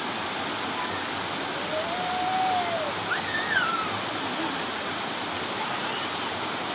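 Waterfall rushing steadily, with a couple of faint gliding calls about two and three seconds in.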